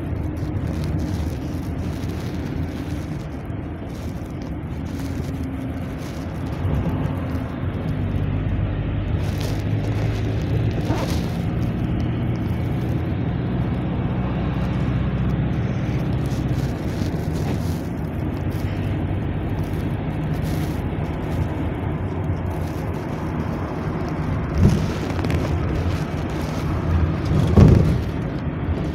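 GAZ Next minibus heard from inside the passenger cabin while driving: steady engine hum and road noise, the engine note rising and falling with speed. Two low thumps near the end.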